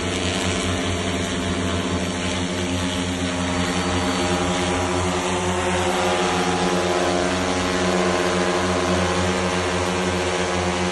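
Multirotor agricultural sprayer drone's propellers and motors humming steadily in flight, a low drone made of several steady tones that grows a little louder about halfway through.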